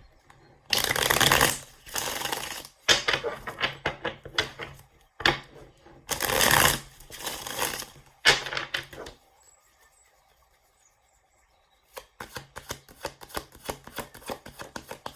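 A tarot deck shuffled by hand in several bursts of about a second each, then a pause of about three seconds, then a run of quick light clicks as the cards are handled.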